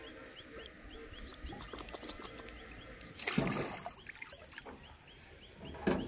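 A rapid run of short, rising high chirps from a small animal, about three a second, over a faint outdoor hiss. About three seconds in a brief, loud rushing noise cuts across it, and a shorter one comes near the end.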